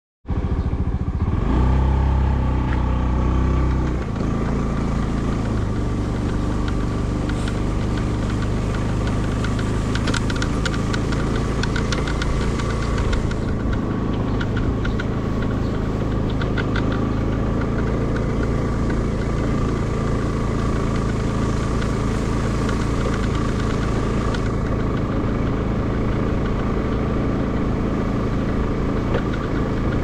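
Small motorcycle engine running steadily while riding along a dirt road, louder for the first few seconds. Short runs of rapid clicking or rattling come in about a third of the way through and again a little later.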